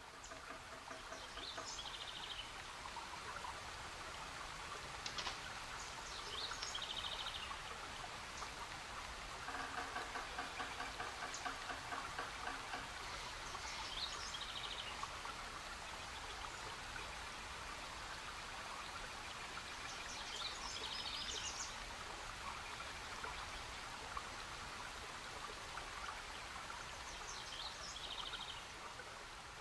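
Faint outdoor ambience: birds calling every few seconds in short high chirps, with a lower rapid trill lasting about three seconds near the ten-second mark, over a steady hiss.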